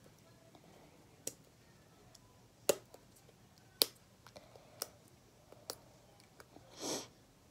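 Sharp, irregular plastic clicks and taps, about five loud ones with fainter ticks between, from a stuck cap on a paint bottle being worked at to get it open. A brief soft rush of noise comes near the end.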